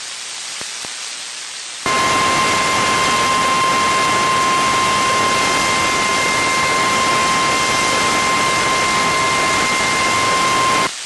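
NOAA Weather Radio 1050 Hz warning alarm tone heard through heavy radio static: a single steady tone that starts about two seconds in, holds for about nine seconds and cuts off abruptly. It signals that a warning message follows. Before it, only quieter static hiss.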